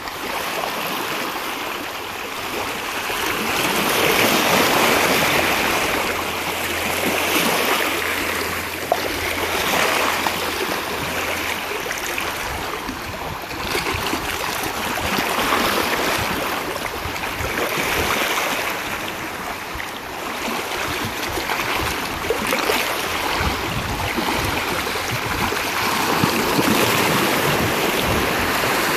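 Small waves lapping and washing over a shallow shoreline, swelling and easing every few seconds. A faint low hum runs under the water for about the first ten seconds.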